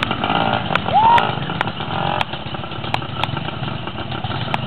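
Engines of several small off-road motorbikes and a quad running as they ride through mud. A voice calls out, rising in pitch, about a second in.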